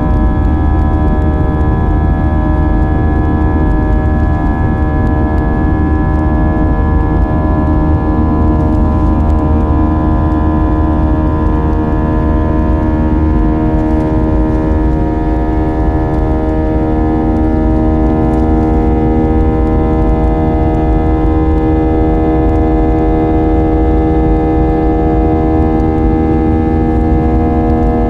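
Airbus A320 jet engines heard from inside the cabin during the climb after take-off: a loud, steady drone with a low rumble and several steady tones that slowly waver.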